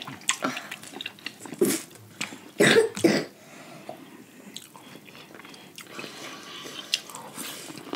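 Close-up eating sounds of people eating a crab seafood boil: chewing and biting, with two short loud bursts close together about three seconds in.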